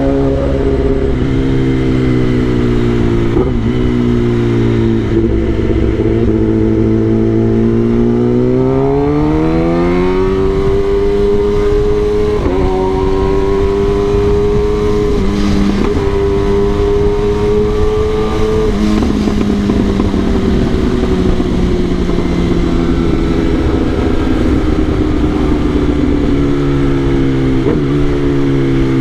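Kawasaki ZX-10R's inline-four engine running under way, its note steady, then rising about eight seconds in, holding higher, and easing down slowly through the second half. A low rush of wind noise runs underneath.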